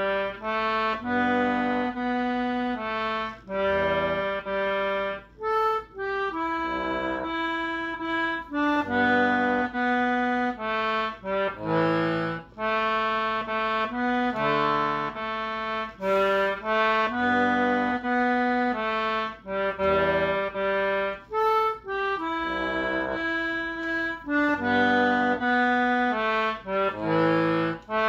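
Concertina playing a tune, melody and chords together over lower bass notes, in phrases with short breaks between them.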